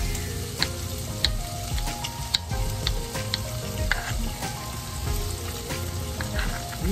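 Turkey bacon and garlic sizzling in a stainless steel frying pan, a steady frying hiss. Sharp knife taps on a wooden cutting board come through as garlic is minced, mostly in the first half.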